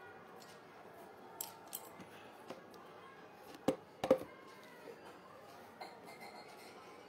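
Handling noise from a phone used as a live-streaming camera: small clicks and taps, with two louder knocks close together about four seconds in as the phone is moved, over faint room tone.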